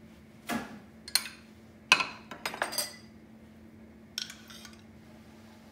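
Short clinks and knocks of kitchen utensils: a handheld lemon squeezer is set down and a metal measuring spoon clinks against a small bowl while scooping lemon juice. There are about five separate clinks, the loudest about two seconds in.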